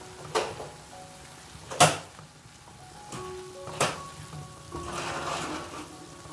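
A slotted plastic spatula stirring chopped cauliflower, zucchini and tuna in a granite-coated frying pan. It knocks against the pan three times, loudest about two seconds in, then moves the food for about a second near the end. Soft background music runs underneath.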